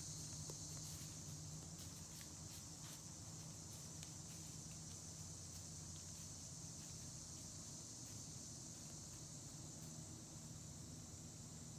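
Steady high-pitched insect chorus of crickets or katydids, faint, with a few light ticks and crackles in the first few seconds.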